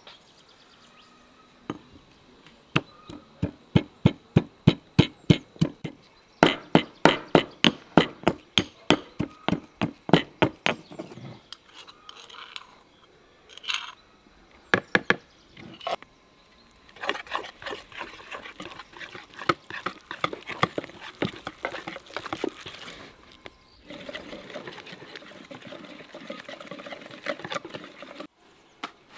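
Pestle pounding garlic in a marble mortar: a run of sharp, even knocks that becomes faster and louder after a few seconds. After a few scattered knocks and scrapes, a wire whisk beats a mixture in a plastic bowl, a long fast clatter of clicks.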